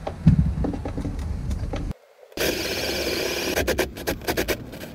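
Cordless drill boring a cable hole through the timber floor with a larger bit, its motor running under load. The sound drops out briefly about two seconds in, then the drill runs steadily again, and a quick run of sharp clicks follows near the end.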